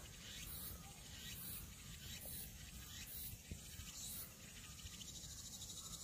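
Insects buzzing in high-pitched pulses about once a second, over a steady low rumble.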